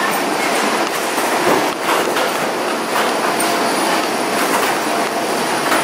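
Steady roar of air and machinery inside an airport jet bridge, broken by irregular clunks of footsteps on the jet bridge's floor as it is walked toward the aircraft door.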